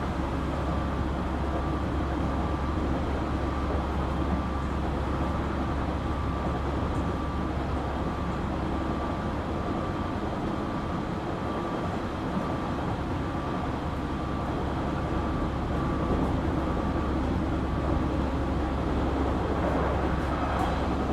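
JR Kyushu 817 series electric train running at steady speed, heard from inside the car: a continuous rumble of wheels on rail with a steady whine on top. This car is known for an unusual running noise, likened to the Keio 7000 series.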